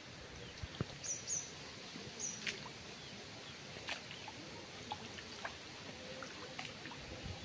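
Faint water sounds: small scattered splashes and sloshing as a net is dragged through a flooded canal. A few short high bird chirps come about a second in and again just after two seconds.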